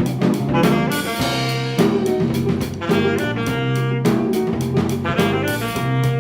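An instrumental band playing jazz-funk: melody instruments over a bass line and a drum kit keeping a steady beat.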